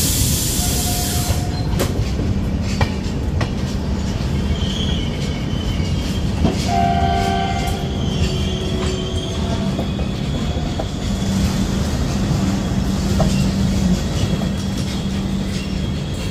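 Indian Railways passenger coach rolling slowly through a station, heard from the open door: a steady rumble with clicks of the wheels over rail joints. A train horn sounds for about a second and a half about seven seconds in, and a thin high squeal from the wheels and brakes runs through the second half as the train slows to a stop.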